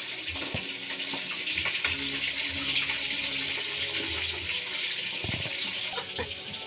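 Steady hiss from wood-fired clay cooking stoves burning under a pot, with a few faint crackles.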